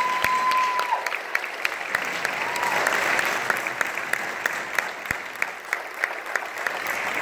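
Audience applauding, with claps close by standing out in a quick steady rhythm. A held whistle sounds for about a second at the start, and a shorter one comes about two and a half seconds in.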